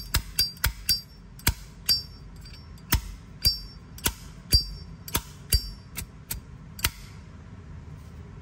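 Zippo lighter lid snapped open and shut again and again, each sharp metal click carrying a brief high ring, about two a second, stopping near the end.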